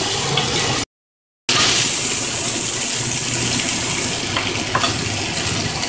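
Steaks sizzling in cast iron skillets, a steady hiss that cuts out for a moment about a second in, then carries on; a couple of light clinks near the end.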